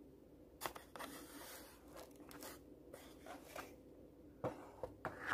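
Faint rustling and crinkling of plastic packaging, with a few sharp clicks and knocks, as items are handled in a cardboard box. It comes in irregular bursts starting about half a second in.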